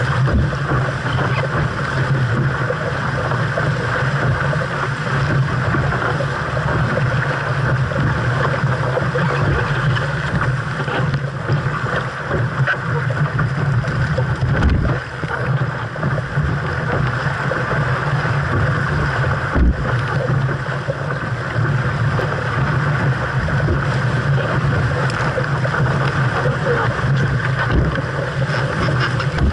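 Water rushing along the hull of a 470 racing dinghy under sail in a strong breeze, mixed with wind buffeting the microphone: a steady, loud noise. Two brief knocks stand out, about halfway through and a few seconds later.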